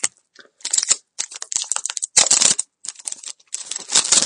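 Plastic wrapper of a hockey card pack crinkling and tearing as it is opened by hand, in irregular bursts.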